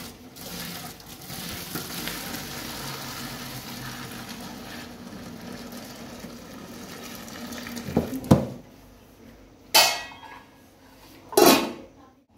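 Hot water from boiled rice pouring out of an aluminium pot into a stainless steel sink, a steady splashing rush for about the first seven seconds: the rice being drained. Then the metal pot and lid knock and clank, with three loud clanks in the second half.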